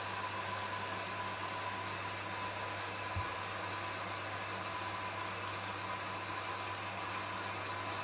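Hoover Dynamic front-loading washing machine running on a 60°C wash: a steady hum with a faint high whine over it, and one low thump about three seconds in.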